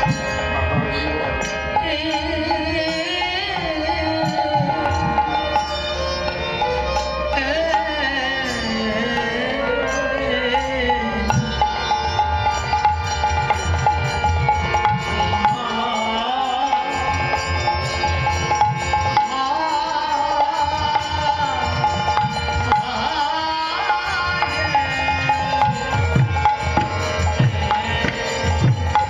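Devotional kirtan music: a hand drum plays a quick, busy rhythm under a sustained melody, with sung phrases rising and falling in places.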